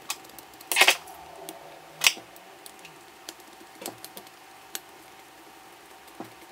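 Small screwdriver driving screws through the corners of a small plastic cooling fan, giving scattered clicks and clatters of metal on plastic, loudest about a second in and again around two seconds.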